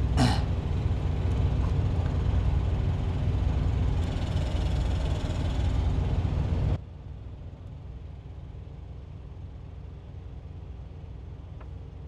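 Steady idling engine noise, a low rumble with a constant hum. About seven seconds in it drops off abruptly, leaving a quieter steady hum.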